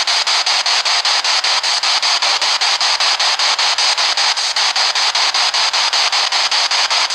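Spirit box sweeping through radio stations: a loud, steady hiss of radio static, chopped by quick regular breaks about seven times a second as it steps from channel to channel.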